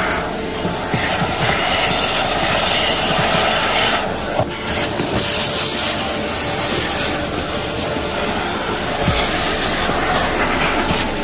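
Vacuum cleaner running with a steady, loud rushing hiss of air, which dips briefly about four seconds in.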